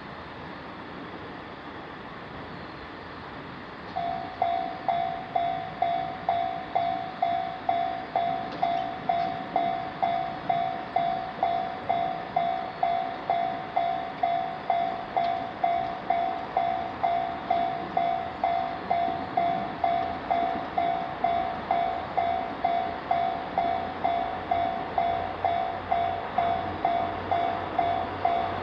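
Japanese railroad crossing warning bell starting about four seconds in and ringing steadily at about two strikes a second, each strike a bright ding that fades before the next. Near the end a low rumble builds beneath it as a train approaches.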